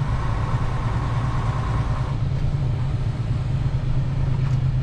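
Western Star semi truck's diesel engine running steadily inside the cab as the rig rolls slowly with a trailer behind it, a low drone with road noise. A faint higher whine sits over it for about the first two seconds.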